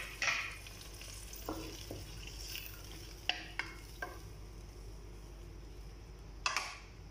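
A utensil stirring squash cubes and string beans in a pot of simmering liquid: a series of short scrapes and knocks against the pot, the sharpest near the start and near the end, over a steady hiss from the simmering pot.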